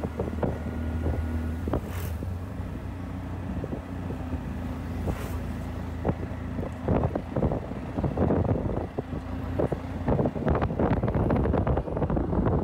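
A small open vehicle's engine running steadily on the road, with wind on the microphone. From about halfway through, busy rattles and knocks are added, as from the body jolting over a rough road.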